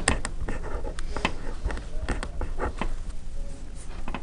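Scattered light clicks and taps at an irregular pace, then a pen writing on paper near the end.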